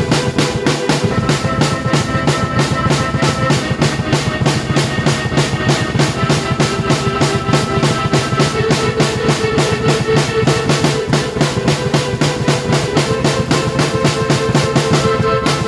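Drum kit played fast and steadily, bass drum and snare hits packed close together, with sustained keyboard notes held over the beat.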